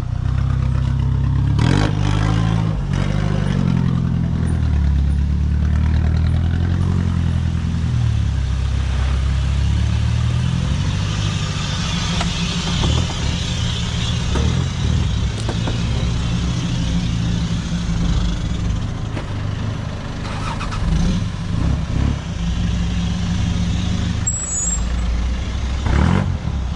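Troller 4x4's diesel engine running under load while driving off-road, its pitch rising and falling several times in the first half. A rushing noise rises over the engine through the middle.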